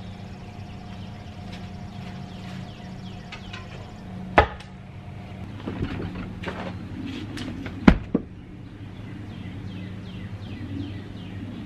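Log rounds being shifted by hand: two heavy wooden knocks about three and a half seconds apart, the louder second one as a round pushed off a stacked log lands on the ground, with a small bump just after. A steady low hum runs underneath.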